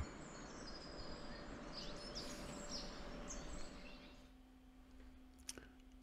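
Quiet woodland ambience with small birds chirping and calling over a soft background hiss. A few short chirps come in the middle, and then it falls quieter.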